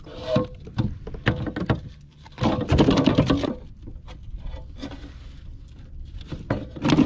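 A hooked striped bass thrashing and splashing as it is brought into a landing net, with irregular knocks and rubbing of gear. The commotion is loudest for about a second, starting some two and a half seconds in.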